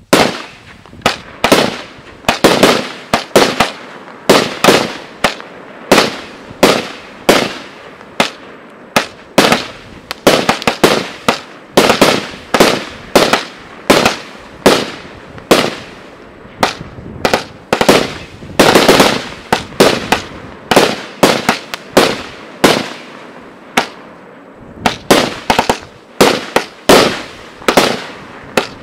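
Category 3 consumer firework compound (a fused cake assembly) firing shot after shot: sharp bangs in quick succession, about one to two a second, some close together in clusters.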